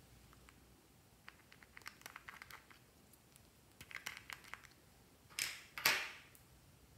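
Small plastic twin-compartment case being handled and its screw-on lids twisted off: a run of light plastic clicks and ticks, then two louder scratchy rasps near the end.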